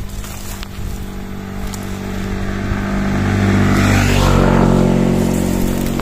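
A motor vehicle's engine passing by on the road, growing louder to its closest point about four seconds in, dipping slightly in pitch, then starting to fade.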